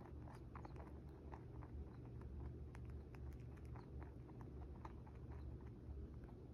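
Pet rabbit nibbling and chewing a compressed hay treat on a stick: faint, irregular crunchy clicks several times a second, over a low steady hum.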